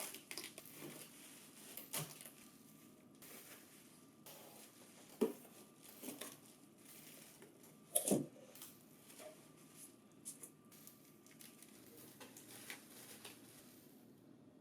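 Faint rustling of packing material with a few light clicks and knocks as a staple cartridge, output bin and hole punch box are unpacked; the loudest knocks come about 5 and 8 seconds in.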